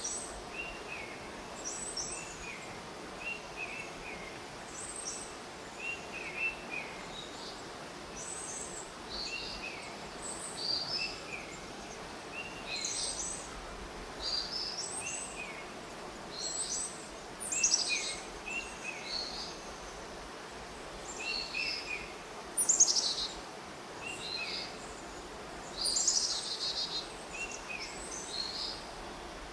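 Birds chirping: many short, high calls repeating and overlapping throughout, a few louder ones standing out, over a steady background hiss.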